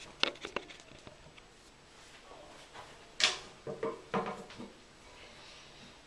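Porcelain toilet tank lid being handled and set back on a Gerber Avalanche tank: a few light clicks near the start, a sharp clack about three seconds in, then a quick run of clunks.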